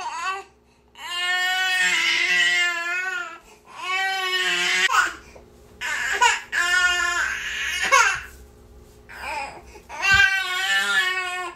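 Infant crying hard: a string of long, high-pitched wails, each a second or two, broken by short catches of breath.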